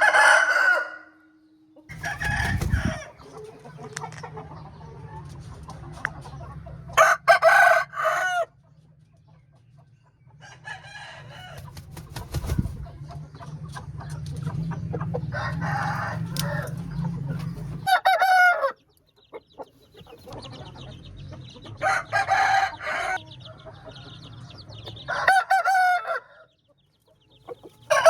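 Roosters crowing, one crow after another every few seconds, each about a second long, with a low hum in the background through some stretches.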